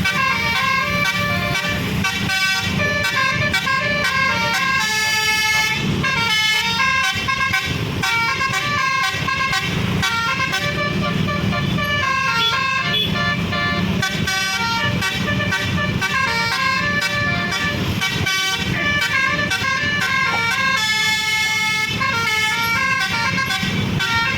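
Bus's Basuri telolet multi-tone musical horn playing a tune in quickly changing notes, breaking off briefly now and then, over steady engine noise.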